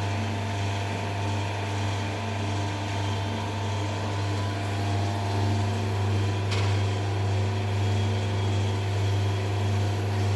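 Construction 3D printer running: the steady electric hum of its gerotor mortar pump and rotating boom drive, with one short click about six and a half seconds in.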